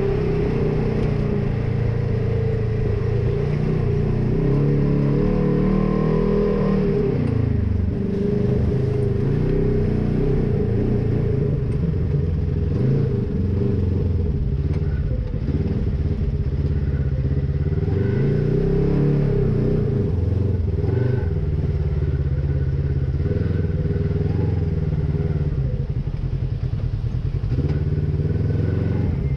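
Polaris RZR side-by-side's parallel-twin engine running under way, heard from the cab. Its pitch rises and falls several times as the throttle is eased on and off.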